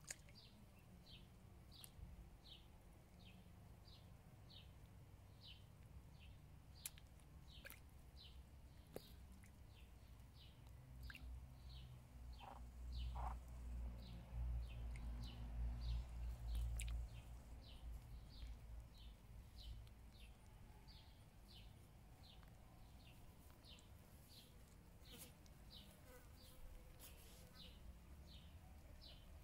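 A bird repeats a short, high, slightly falling chirp about three times every two seconds. A low rumble swells in the middle.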